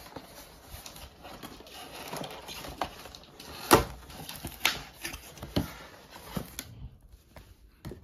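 Cardboard soundbar box being handled and opened on a hard floor: a few sharp knocks with light scraping and rustling, the loudest about four seconds in.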